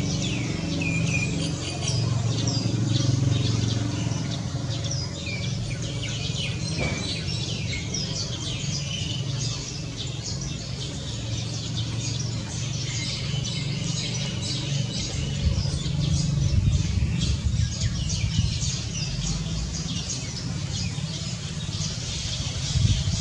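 Many small birds chirping in quick, overlapping short calls, over a steady low rumble.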